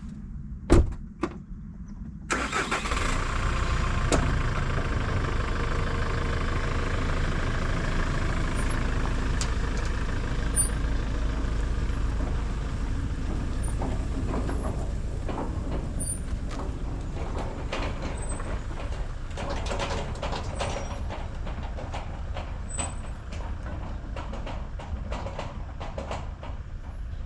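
Stump grinder's 420 cc petrol engine running low, a sharp knock just under a second in, then about two seconds in it jumps to full throttle and runs steadily. Scattered ticks and clatter are heard in the second half.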